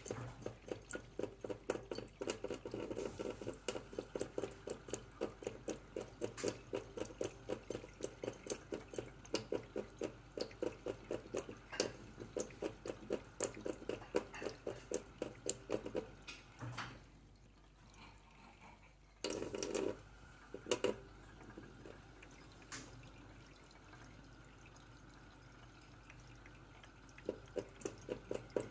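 A cat lapping water at a tap, a quick even rhythm of about four laps a second. The lapping stops for several seconds, with a brief louder noise in the gap, and starts again near the end.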